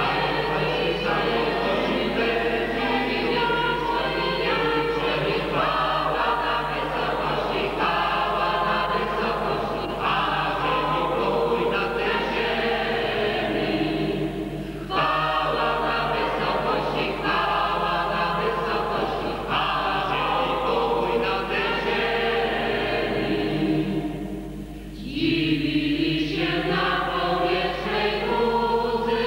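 Mixed parish choir of men's, women's and girls' voices singing a Polish Christmas carol (kolęda) in long held phrases, with short breaks between phrases about halfway through and again near the end.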